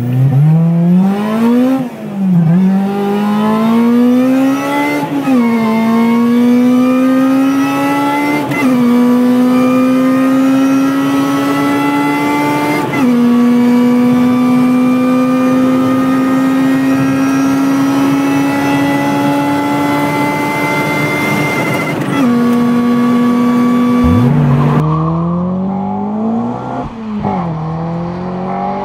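Supercharged car accelerating hard through the gears. The engine pitch climbs and drops back at each of about five upshifts, and between shifts it holds nearly steady for several seconds. Near the end a different engine revs up and down.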